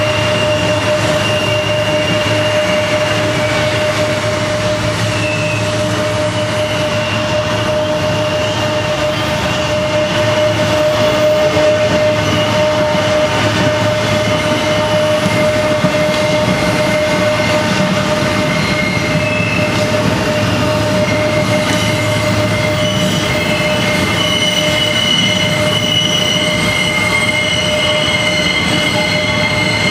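Freight train's loaded coal hopper cars rolling steadily round the tight Horseshoe Curve, with steel wheel flanges squealing against the rail in long steady high tones that grow stronger about two-thirds of the way through.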